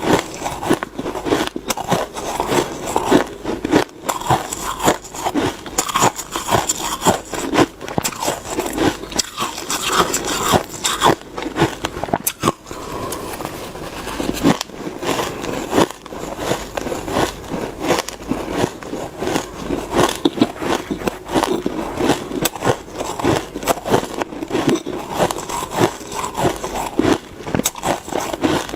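Someone biting and chewing snowy shaved ice close to the microphone: a dense run of rapid, crackly crunches with a few short pauses.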